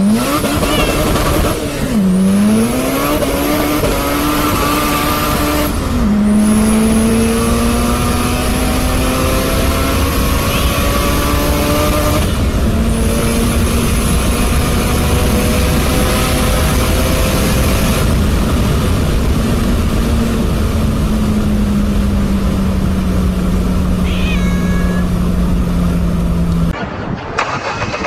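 A cat yowling in long drawn-out calls inside a moving car, the pitch sliding slowly up and down with only brief breaks, over steady road rumble. The yowling cuts off abruptly near the end.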